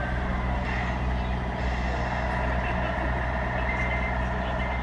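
Radio-controlled scale truck's electronic sound unit playing a steady diesel truck engine sound, with a few short high beeps near the end.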